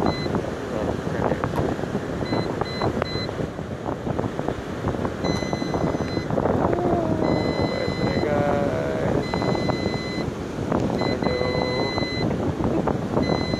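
Wind buffeting the microphone over beach surf, with an electronic device giving short, repeated high beeps that come and go in stretches.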